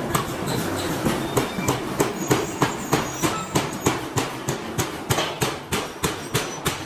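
Metal being struck over and over, about three blows a second, each with a brief metallic ring, over a steady industrial din.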